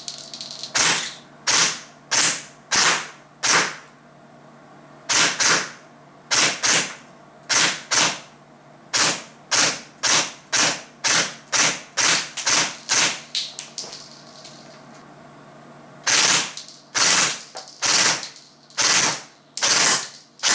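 Airsoft AKS-74N replica firing single shots at a paper target on a cardboard box, about thirty sharp cracks at roughly two a second, with brief gaps of a second or two a few seconds in and before the last handful.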